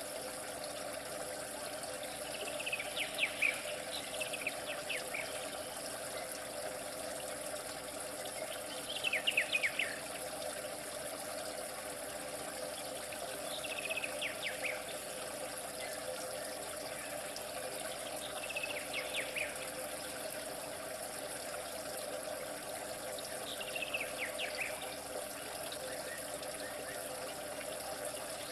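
Steady trickling water, with short clusters of bird chirps recurring about every five seconds.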